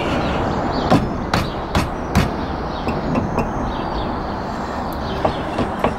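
Sharp knocks from a stuck alloy wheel being rocked and struck by hand to free it from the rear hub of a Vauxhall Astra. There are four loud knocks in about a second and a half, starting about a second in, then a few lighter ones.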